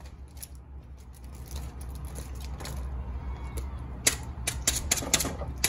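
Cookware handling at a skillet of meatballs in gravy as chopped onions go in: a quick run of sharp clicks and knocks of utensils against the pan, starting about four seconds in, over a low steady hum.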